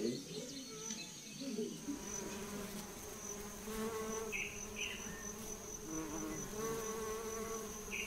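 Jate'i stingless bees (Tetragonisca angustula) buzzing as they fly around their nest entrance, a soft low hum that swells and fades, over a steady high insect trill.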